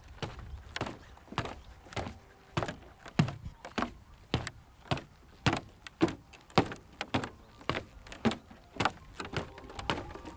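Footsteps walking on a wooden pathway, shoes knocking on the boards at a steady pace of about two steps a second.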